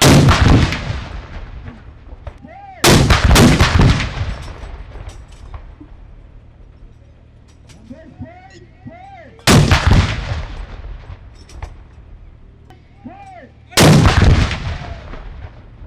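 Ceremonial saluting cannon firing a gun salute: four heavy blasts a few seconds apart, each followed by a long rumbling echo that dies away.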